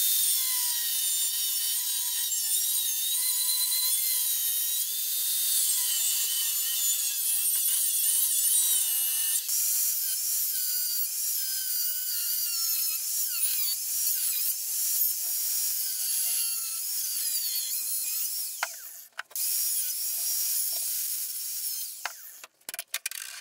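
Angle grinder with a cutting disc slicing through the steel wall of a small propane bottle. Its whine wavers up and down as the disc bites into the metal. It stops briefly about three-quarters of the way through, runs again, then winds down near the end.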